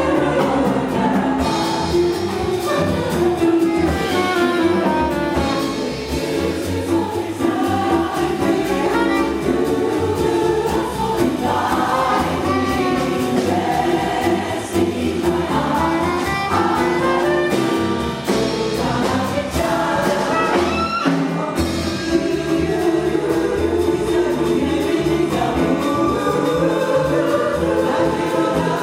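A jazz vocal chorus singing in close harmony with a small jazz band of piano, saxophone, bass and drums.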